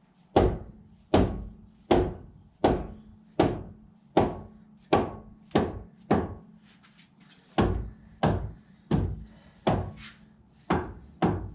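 Hammer blows on a knock-off wheel spinner to loosen it: about sixteen heavy, evenly spaced strikes, each with a short ringing decay, with a brief pause about two-thirds of the way through.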